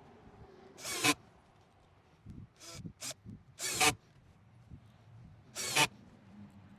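A clamp being tightened on the table frame: five short rasping strokes of about a third of a second each, spaced irregularly.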